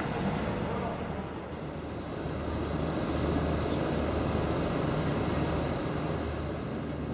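Steady low hum of an SNCF Z 27500 electric multiple unit standing at a station platform. It comes up after about two seconds of quieter street ambience.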